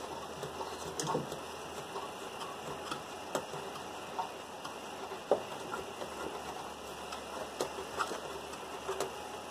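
Scattered small plastic clicks and taps from a stock fog light's adjuster mechanism being worked out of its housing by hand.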